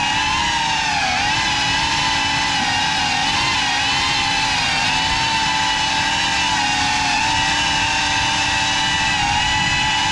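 FPV quadcopter's electric motors and propellers whining steadily, several pitches wavering up and down together with the throttle, with a dip about a second in.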